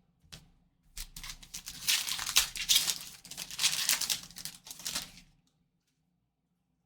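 A trading-card pack's foil wrapper being torn open and crinkled, a dense crackling that lasts about four seconds and then stops.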